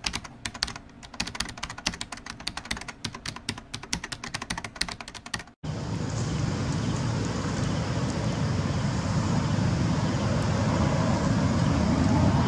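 A fast run of clicks like typing on a keyboard, the sound effect of an animated intro, which cuts off sharply about five and a half seconds in. Then a steady outdoor rumbling noise, heaviest in the low end, that slowly grows louder.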